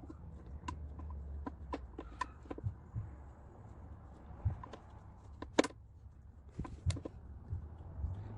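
Irregular light clicks and knocks of hand tools, bolts and the plastic upper timing-belt cover being handled and fitted, with one sharper, louder click a little past halfway.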